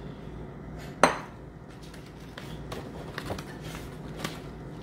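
A white ceramic bowl set down on the counter with one sharp knock about a second in. Then come lighter clicks and crinkles as stiff, dry rice paper sheets are handled and pulled from their plastic package.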